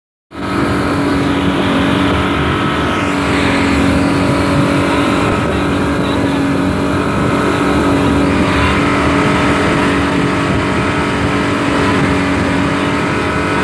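Twin Yamaha 200 hp outboard motors running steadily at speed, a constant drone over the rush of wake water and wind.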